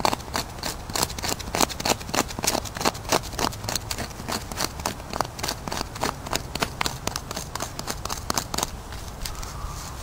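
A knapped stone flake scraping birch bark in quick, repeated strokes, about three a second, shaving it into fine tinder powder. The strokes stop near the end.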